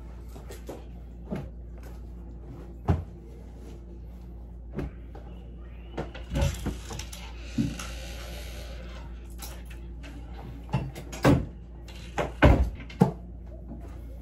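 Scattered knocks, bumps and clacks as clothes on hangers are taken out of a wardrobe and gathered up, with a longer rustle of fabric about six seconds in. A steady low hum runs underneath.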